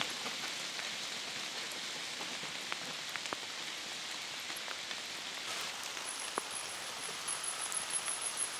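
Steady hiss of rain falling in a wet forest, with scattered ticks of drops.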